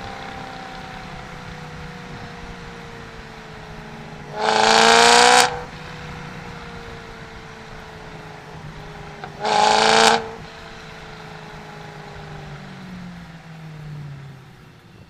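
BMW M3 engine and exhaust cruising with a steady drone that slowly sinks in pitch, cut twice, about four and nine seconds in, by a loud rising rev of about a second each as the throttle is opened hard and released.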